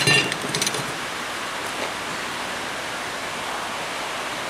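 Rain falling steadily on a tin roof, an even hiss.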